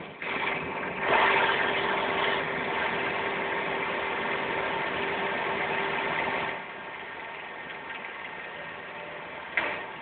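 Mazda Miata's 1.6-litre B6 four-cylinder engine running, heard through a listening hose held against the block beneath the intake manifold, while the owner listens for a knock that he suspects is rod knock. The sound is louder with a steady tone at first, drops noticeably about two-thirds of the way in, and has a brief louder noise near the end.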